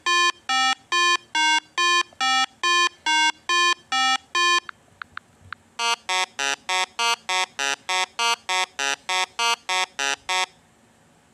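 Alarm-like beeping: a run of beeps alternating between two pitches at about two a second, then after a short gap a faster run of beeps at about four a second that stops near the end.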